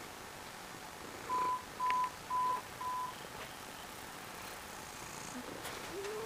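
Four short electronic beeps at one steady pitch, about two a second, from a household beeper. Near the end, a faint rising snore from the sleeping Maine Coon cat.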